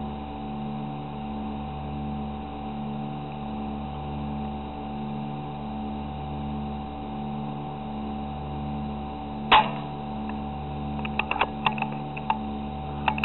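A single sharp rifle shot about nine and a half seconds in, over a steady hum. A run of light clicks follows a couple of seconds after the shot.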